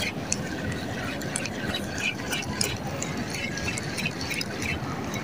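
Seawater sloshing and lapping in a steady wash, with many small irregular splashes and ticks, several a second.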